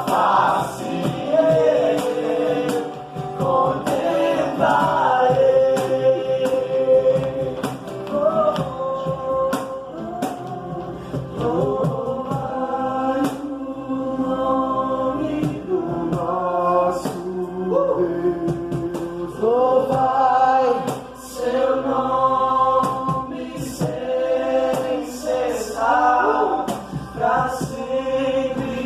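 Gospel worship music: singing that glides and holds notes over instrumental accompaniment.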